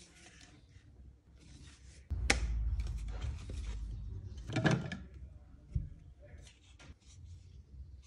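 Hard plastic water filter housings being handled: a few sharp plastic clicks and knocks with rubbing and scraping. The loudest cluster comes a little before the five-second mark.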